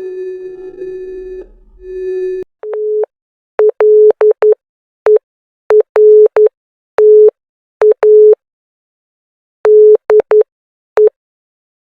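Synthetic emergency-alert tone: a steady single-pitch tone for about the first second and a half, then the same pitch switched on and off in a run of short and long beeps at uneven spacing.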